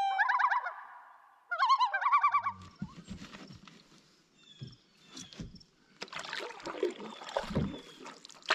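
Common loon calling: a wavering, warbling tremolo in the first moment and again about a second and a half in. After that come fainter scattered knocks and rustling.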